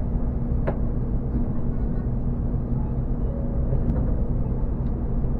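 Steady low hum inside a Hokuriku Shinkansen car standing at a platform, with a faint steady tone running through it. A sharp click comes under a second in, and a couple of fainter ticks follow near the end.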